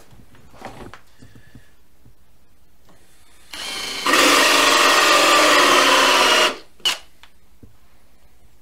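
Cordless drill driving a 44 mm hole saw into wood: it spins up briefly about three and a half seconds in, then bites and cuts loudly with a steady whine for about two and a half seconds before stopping abruptly. A short click follows.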